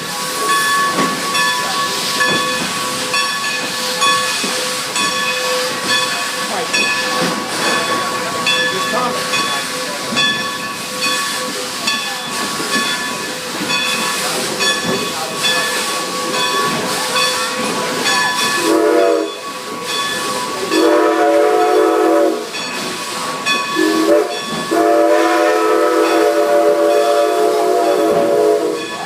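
Train rolling on the rails with a steady clatter and hiss, then the steam locomotive's multi-tone whistle blows four times from about two-thirds in: short, long, short, and a final long blast.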